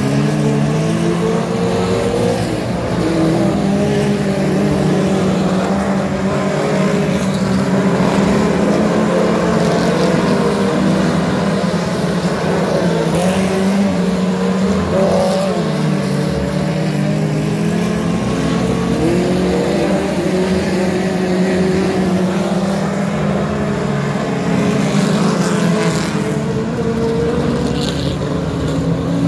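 A field of four-cylinder ministock race cars running laps on a dirt oval, several engines rising and falling in pitch as they accelerate and lift through the turns.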